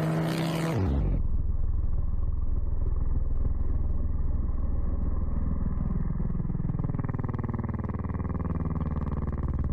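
Engine noise from a dirt bike and a low-flying aerobatic propeller biplane. In the first second the pitch falls, then a steady engine drone with a fast, even pulse runs on, its pitch shifting slightly near the end.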